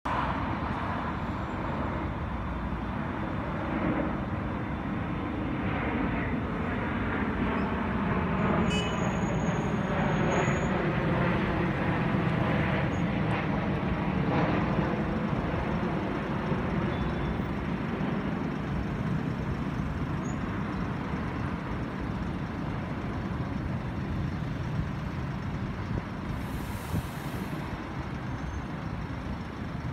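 VDL Futura FHD2 coach pulling in to a stop and standing with its diesel engine running, under steady passing road traffic. A short hiss of air comes near the end.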